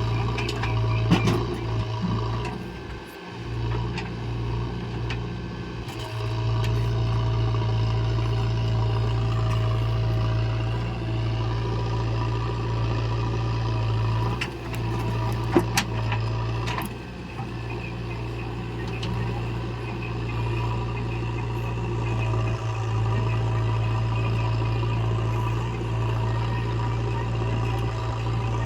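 Diesel engine of a backhoe loader or farm tractor running steadily, with a few sharp knocks and brief dips in engine note.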